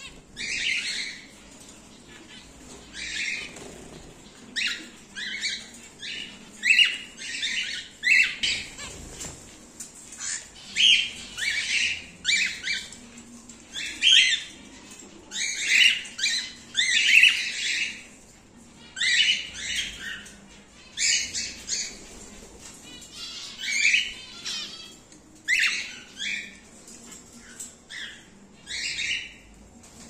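Cockatiels calling: a string of short, harsh squawks, one or two a second with short pauses, some of them overlapping.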